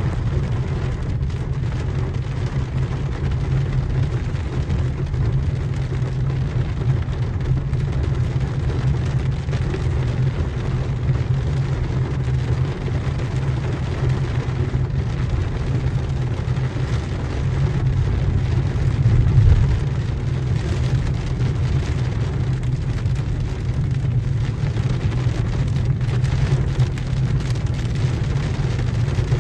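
Heavy rain pelting a car's roof and windshield, heard from inside the cabin over a steady low rumble from the car. It swells briefly louder about twenty seconds in.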